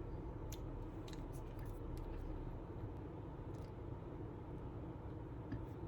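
Faint clicks and handling noises from a plastic skincare serum tube being handled and opened, over a steady low room hum.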